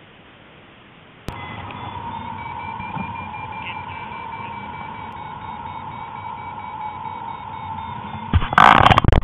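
Paragliding variometer beeping rapidly and continuously from about a second in, the sound it makes when the glider is climbing in a thermal. Near the end, loud rough noise bursts cover it.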